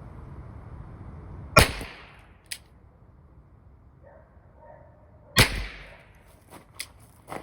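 Two shots from a Smith & Wesson K-22 .22 LR revolver, about four seconds apart, each with a short ring-out. A fainter click follows about a second after the first shot, and a few small clicks come near the end.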